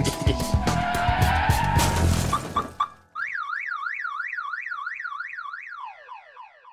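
Music with knocks and clatter for about three seconds, cut off abruptly, then a siren-like warbling tone that sweeps up and down about three times a second and breaks into a few falling glides as it fades out: an end-logo sound effect.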